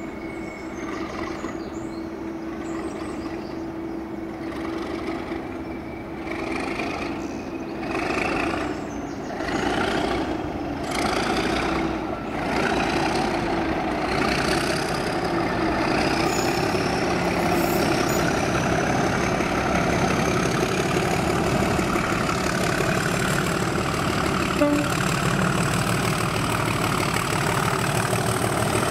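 Class 37 diesel locomotive's English Electric V12 engine growling as it pulls away under power from a stand, getting louder over the first half as it draws near. A high whistle rises steadily in pitch as it powers up.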